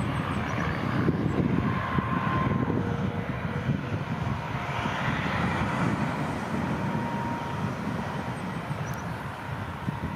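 Lockheed CC-130J Hercules's four Rolls-Royce AE 2100 turboprop engines running on the ground, a steady deep drone of engines and propellers.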